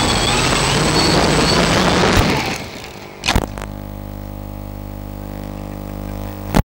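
Hexacopter's electric motors and propellers running, then winding down about two and a half seconds in. A thud follows as the craft tips over on landing. A steady electrical buzz runs on until the sound cuts off abruptly.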